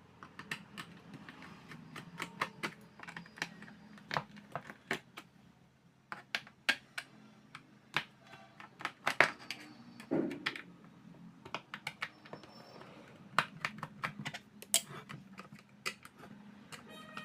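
Irregular sharp clicks and taps of a tool and small parts being handled while a 50-watt LED flood light is taken apart.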